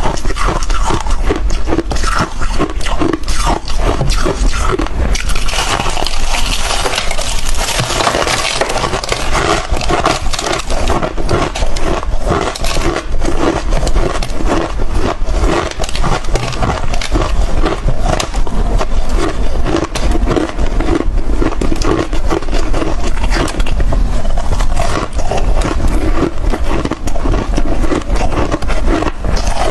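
Hard chunks of freezer frost being bitten and chewed close to the microphone, a dense run of crisp, icy crunches.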